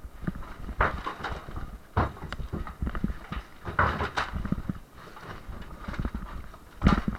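Partition walls being broken down: irregular heavy blows with crumbling and clattering debris between them, several strikes a second.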